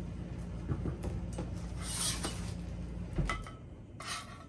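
Light clicks, knocks and rustles from handling the parts of a multi-piece paddle, under a steady low hum that cuts off about three seconds in.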